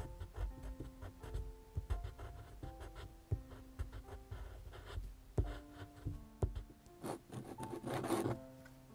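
Colored pencil strokes scratching and rubbing on paper, in short repeated strokes, with a longer, louder rasp about seven seconds in. Soft background music with held notes plays throughout.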